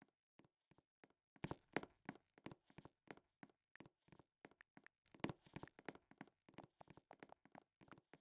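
Faint, irregular clicks and taps in quick succession, with two louder, denser flurries, one near the start and one around the middle.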